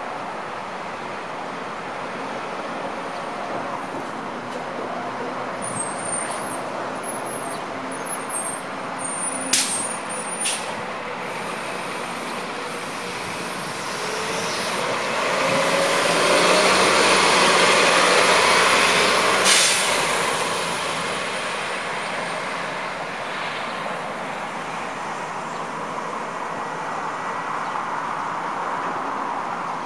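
City transit bus pulling out and driving past, growing louder to a peak about 17 to 19 seconds in and then fading. There are short sharp air hisses from its air brakes, two about ten seconds in and one as it passes, over a steady traffic hum.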